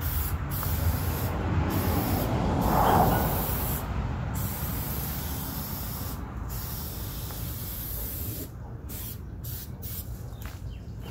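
Aerosol spray hissing in long passes with a few brief breaks as a second coat is sprayed onto a restored plastic headlight lens. The hiss is loudest about three seconds in and slowly fades after that.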